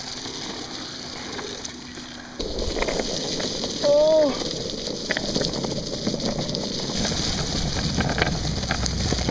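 Longboard wheels rolling over a leaf-strewn paved path, a steady rumble with wind on the microphone, which starts suddenly about two and a half seconds in. A brief high shout about four seconds in is the loudest moment.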